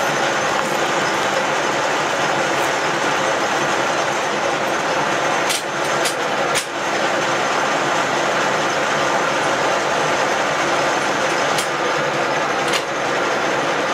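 Cincinnati No. 2 milling machine running under power feed: a steady mechanical whirr of its motors and feed gearing, with a few sharp clicks as the feed levers are thrown, three close together about halfway through and two more near the end.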